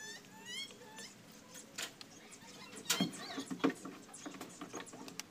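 Clinks and knocks of steel parts of an excavator swing motor being handled and seated in the housing, the loudest two about three seconds in, less than a second apart. A series of short rising animal chirps in the first second.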